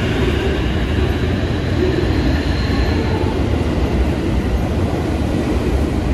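A train running past, a steady loud rumble with a faint high whine briefly about two seconds in.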